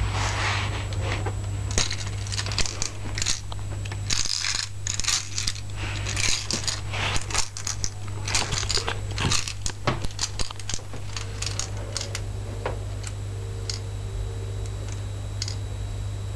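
Lego fairground ride model under test: many irregular clicks and rattles of plastic parts over a steady low hum, busiest in the middle.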